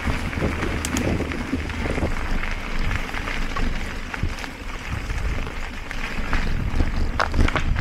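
Mountain bike riding fast over a dirt singletrack, heard from a camera on the bike or rider: steady tyre and drivetrain noise with wind rumbling on the microphone, and a few sharp rattles and knocks from the bike over the rough trail, about a second in and near the end.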